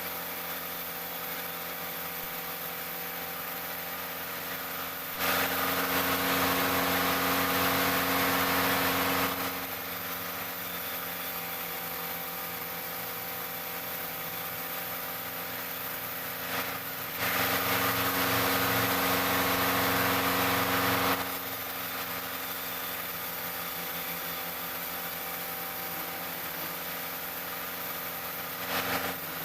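Sawmill machinery running with a steady mechanical hum. Twice, for about four seconds each, it grows louder and harsher, and a third rise starts right at the end.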